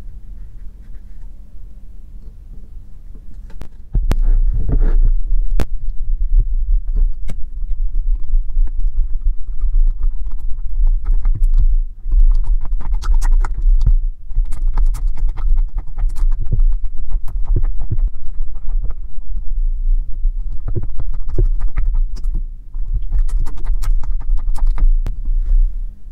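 Silicone spatula stirring and scraping a thick slime mixture in a glass bowl, with sharp clicks against the glass over a heavy low rumble. The rumble starts about four seconds in and breaks off briefly a few times.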